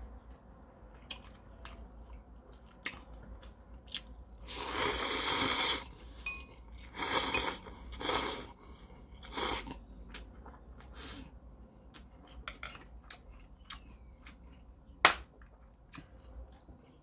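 A person slurping ramen noodles in several loud slurps, about five seconds in and again between seven and ten seconds, with chewing and small clicks of chopsticks and bowl between them. One sharp click comes near the end.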